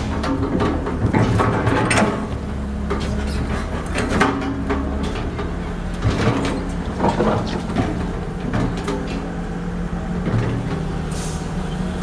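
Excavator engine running steadily, with frequent short clanks and knocks as the digger works.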